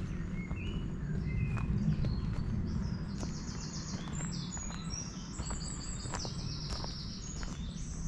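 Footsteps crunching on a gravelly forest path while songbirds sing: a few short whistled notes in the first two seconds, then high, rapid trills from about three seconds in, over a steady low rumble.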